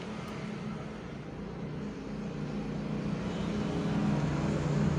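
A low, steady engine hum that grows gradually louder over the last three seconds, like a motor vehicle drawing near.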